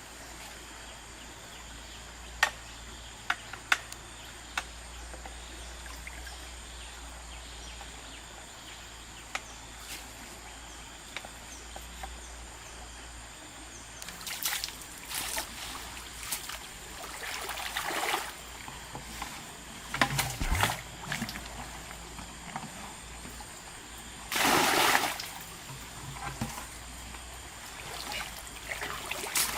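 River water running, with a few sharp clicks early on and irregular splashes in the second half. The loudest is a splash lasting about a second, some five seconds before the end.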